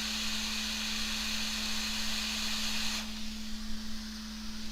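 A steady hiss of blowing air at the repair bench that cuts off suddenly about three seconds in, over a steady low electrical hum.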